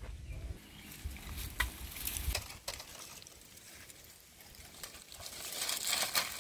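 Dry sticks and dead leaves snapping and crackling as they are picked up by hand from a brush pile: a few sharp cracks in the first three seconds, then a rustling crackle that grows louder near the end.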